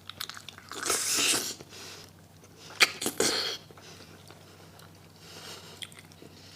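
Close-up mouth sounds of biting into and chewing soft, saucy chicken feet, in a few wet bursts with a sharp click about three seconds in.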